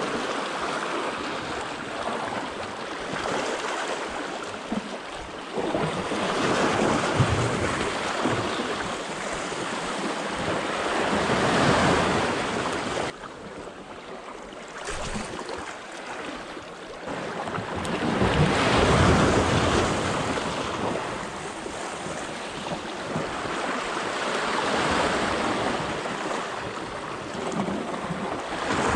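Small sea waves washing in and out over shoreline rocks, rising and falling in slow surges a few seconds apart, with wind on the microphone.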